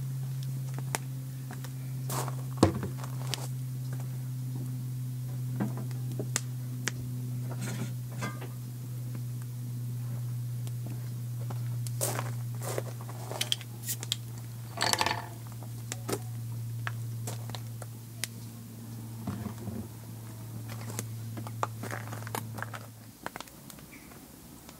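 A steady low hum that cuts off near the end, with scattered sharp clicks and knocks over it.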